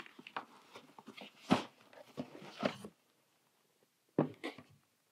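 Cardboard scraping and knocking as a boxed product is slid out of a corrugated shipping carton, then a sharper knock about four seconds in as the box is set down on a wooden table.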